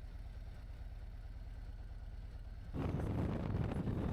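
Wind buffeting the microphone: a low rumble that turns into louder, gusty noise nearly three seconds in.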